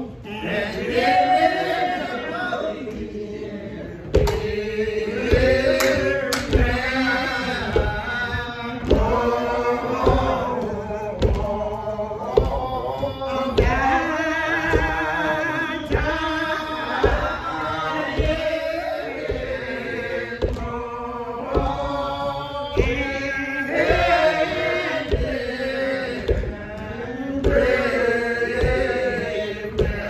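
A woman singing a hymn unaccompanied, in a slow, drawn-out church style. From about four seconds in, hand claps keep a steady beat, a little more than one a second.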